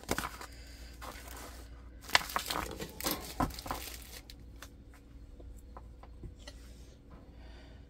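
Diamond painting canvas and its clear plastic cover film rustling and crinkling as it is unrolled and pressed flat by hand, with a few sharp clicks and taps. The handling is busiest in the first four seconds, loudest about two seconds in, then fades to faint scattered ticks.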